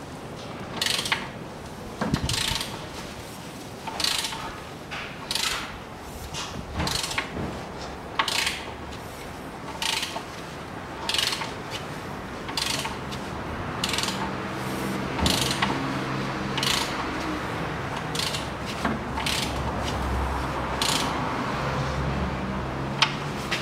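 The 1.4 petrol engine of a Renault Logan is turned over by hand at the crankshaft with a ratchet wrench, just after a new timing belt and tensioner went on. It gives a burst of ratchet clicking about every second. This is the check that the valves clear the pistons, and it is passing: there is compression and nothing binds.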